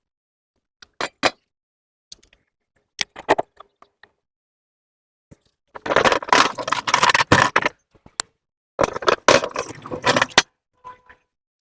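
Clattering of gear being handled: a couple of sharp knocks, then two bouts of rattling and scraping, each about a second and a half long.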